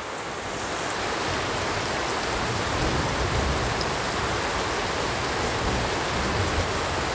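Dough snacks deep-frying in hot oil in a karai: a steady, dense sizzle that swells about half a second in as the snack goes into the oil, with a light scrape of the slotted spoon.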